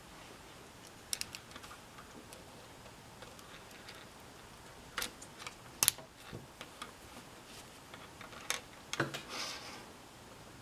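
Scattered clicks and taps of hard plastic K'nex parts being handled, with the sharpest snap just before six seconds in as a red connector is pressed onto a chain link's connector interface. There is a brief rustle of handling near the end.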